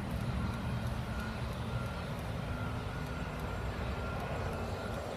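Steady low rumble of an idling engine, with a thin steady whine above it. There is no bang: the mortar firework has failed to go off.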